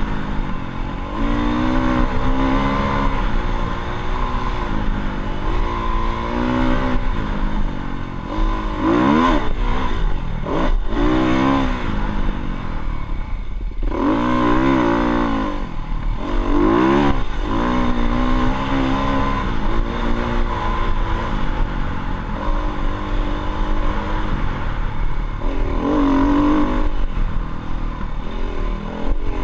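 Dirt bike engine running, its pitch rising and falling again and again as the throttle is opened and closed, with several sharp revs.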